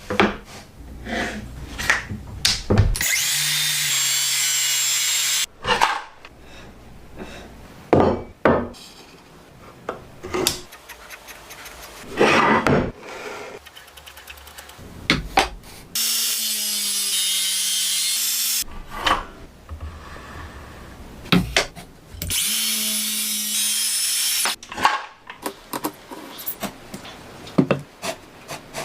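A power tool working wood runs in three short bursts of two to three seconds each, with sharp knocks and clatter of wood and tools being handled between the runs.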